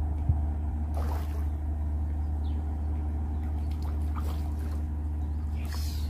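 A steady low motor hum runs throughout, with a few faint splashes, near one second, four seconds and the end, as a hooked fish thrashes at the surface close to the bank.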